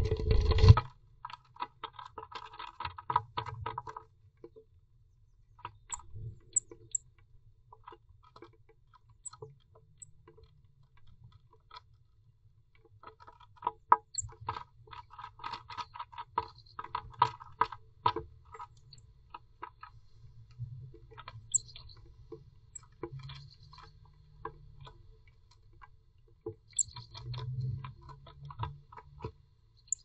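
Blue tit moving about inside a nest box: rapid scratching, tapping and pecking on the box floor and nesting material, in two dense runs near the start and about halfway through, with scattered taps between. A few very short, faint high peeps now and then.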